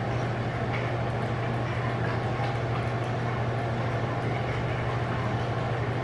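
A steady low mechanical hum over an even rushing noise, unchanging throughout.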